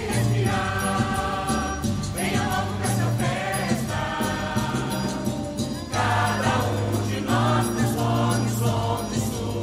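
Choir singing over backing music with jingle bells.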